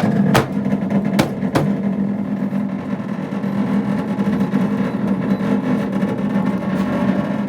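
Steady electrical hum of a microwave oven running with a plugged-in electric massager inside it, after a few sharp clicks in the first two seconds.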